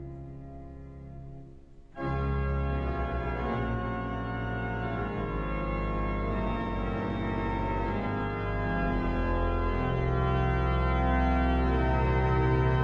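Pipe organ playing sustained chords: a soft registration fades, then about two seconds in the full organ comes in suddenly and much louder with deep pedal bass, swelling a little louder near the end.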